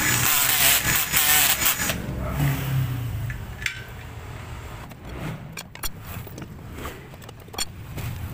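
Power drill running and boring through a motorcycle's alloy wheel rim to make the hole for a rim lock, loud for about two seconds before it stops. After that, quieter scraping and scattered clicks of rubber and metal parts being handled.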